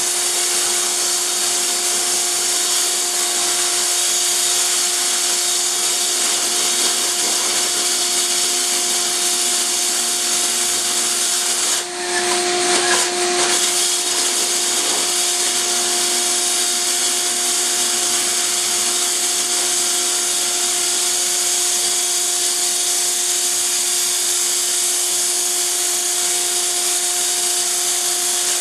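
Electric diamond core drill running steadily as it bores through a concrete floor, a constant motor whine over a strong hiss. About twelve seconds in the sound briefly dips, then rises for a second or so, before settling back.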